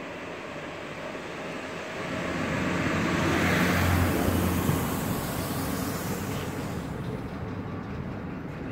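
ÖBB Cityshuttle passenger train passing close by on the tracks. Its rumble and low hum swell to a peak about three to four seconds in, then fade as it pulls away.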